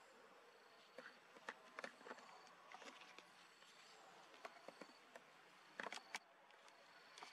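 Near silence with a faint high insect tone coming and going, and scattered sharp clicks and rustles, the loudest pair about six seconds in.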